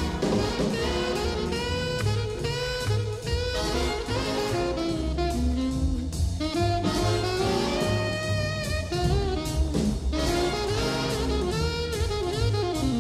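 Background jazz music, a horn melody over bass and drums.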